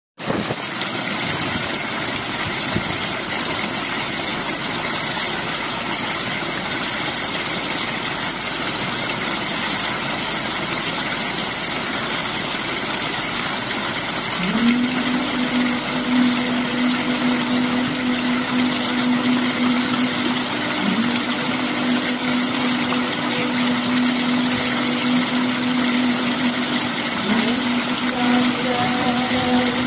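Small stream pouring out of an opening in a stone wall and splashing down into a narrow channel: a steady rushing splash. About halfway through, a steady low motor hum starts and runs on, dipping briefly in pitch twice.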